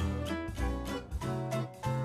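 Background music: an instrumental track with plucked guitar over a bass line, with a steady beat.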